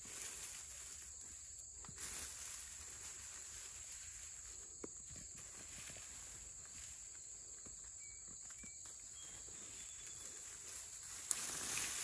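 Hands digging and scraping through loose soil and wood-chip mulch, with soft rustles and a few light clicks, and a louder scatter of dirt about a second before the end. A steady high insect drone runs underneath.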